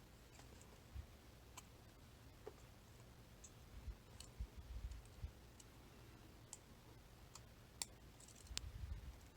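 Faint, scattered small clicks and taps of hardened-steel lock parts, as sliders are worked out of the core of an ASSA Desmo 8 cam lock, with a few low handling bumps around the middle and near the end.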